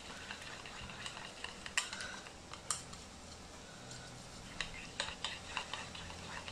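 A utensil stirring thick tempura batter in a bowl: soft mixing with scattered light clicks of the utensil against the bowl, coming more often in the last couple of seconds.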